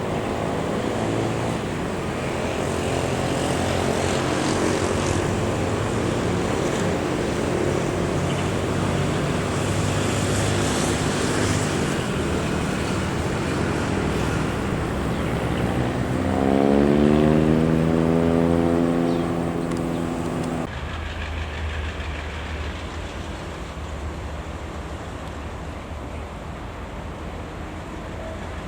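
KTM Class 26 diesel-electric locomotive engine running, its pitch rising about 16 seconds in as it revs up, the loudest part. About 20 seconds in the sound cuts off suddenly to a quieter, lower rumble of another train.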